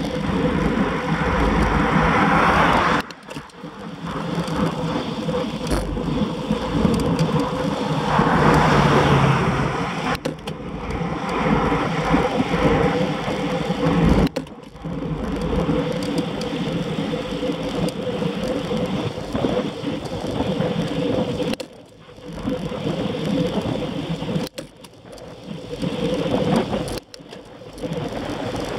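Wind rushing over the microphone with wheels rolling on rough asphalt at speed, over a steady hum, dipping suddenly several times.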